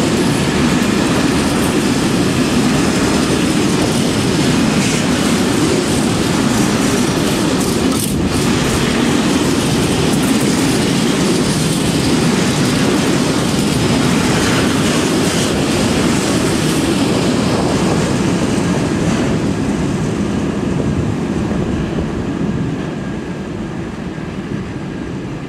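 Freight train of grain hopper wagons rolling past, its wheels clattering over the rail joints, with a sharp clank about eight seconds in. The noise drops away near the end as the last wagon goes by.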